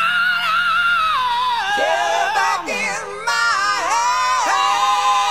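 Grunge rock music: a high male voice wails long, held notes that slide down in pitch, over the full band.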